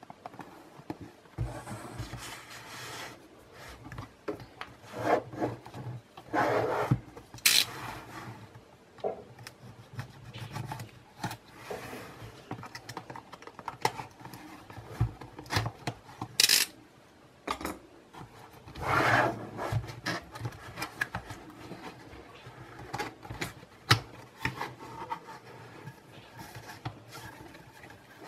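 A cardboard retail box being handled and opened: irregular scraping and rubbing of cardboard, a utility knife slicing through the tape seal, and several sharp snaps and clicks as the flaps are pulled open.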